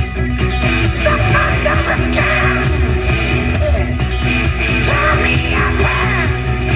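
Rock music with electric guitar.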